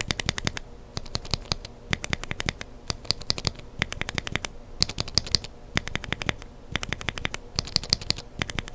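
Mechanical keyboard switches with lubed Kailh Burgundy linear stems, set in aftermarket housings, being typed on: quick runs of clacking keystrokes in groups, each group roughly a second apart.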